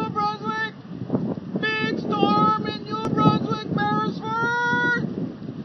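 A high-pitched voice singing quick, short notes in two phrases, over steady wind noise on the microphone; the singing stops about five seconds in, leaving only the wind.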